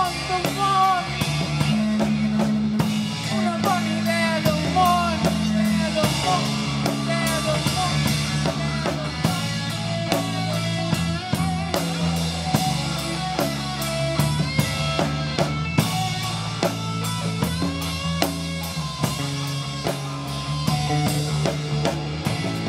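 Live rock band playing an instrumental passage on drum kit, electric guitar and bass, with a wavering violin melody over the first several seconds.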